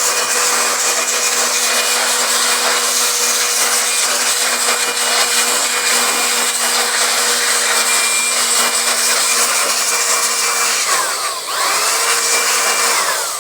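Electric air blower running steadily with a motor whine, blowing dust out of an opened amplifier. Near the end the motor briefly slows, its pitch dropping and rising again.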